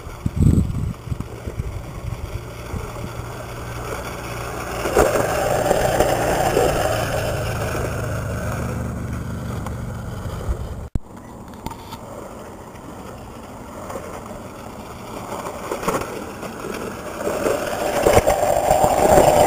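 Razor electric scooter riding over a rough dirt track: its small hard wheels rattle and rumble over the ground under the hum of the motor. The sound grows louder about five seconds in, breaks off sharply about halfway through, and builds up again near the end.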